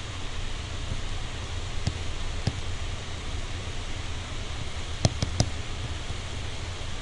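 Steady recording hiss over a low hum, with a few light taps of a pen stylus on a tablet screen during handwriting. There is a single tap about two seconds in, another half a second later, and three quick taps about five seconds in.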